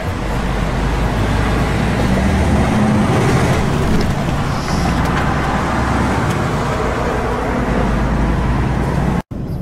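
Engine and road noise heard inside a vehicle's cab while driving on a motorway: a steady rumble and tyre hiss with a low engine hum. It cuts out abruptly for a moment near the end.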